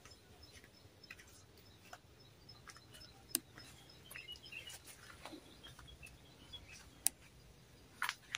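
Quiet rural ambience with faint bird chirps and a few sharp clicks.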